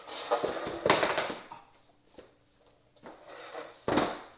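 Several short noisy rushes and rustles of a person moving quickly and dropping down behind a fabric couch, the strongest near the end, with a small click about two seconds in.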